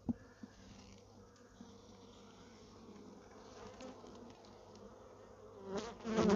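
Honeybees buzzing around an opened mating nuc as a bee-covered frame is prised up and lifted out. A sharp click of the metal hive tool against the wooden frame comes just after the start. The buzzing is faint and steady, then grows louder near the end as the frame comes up.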